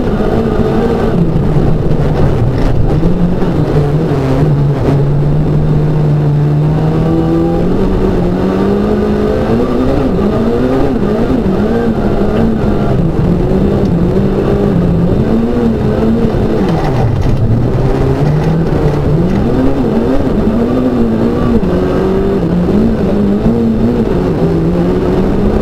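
Competition car's engine heard from inside the cockpit, driven hard: the revs rise and fall continuously with throttle and gear changes, holding one steady note for a couple of seconds about five seconds in.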